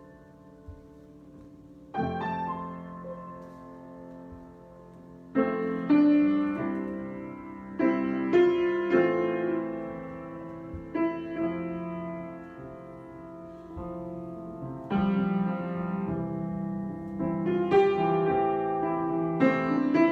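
Solo piano improvisation: slow chords struck every few seconds and left to ring, after a soft opening two seconds of fading sound.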